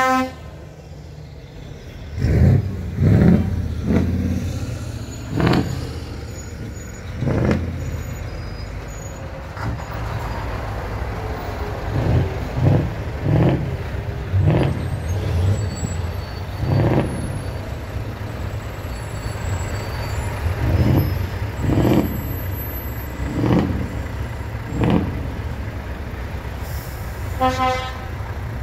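Convoy of heavy truck tractor units rolling slowly past, their diesel engines running steadily, with frequent short, sharp noises from the passing trucks. A truck air horn sounds briefly near the end.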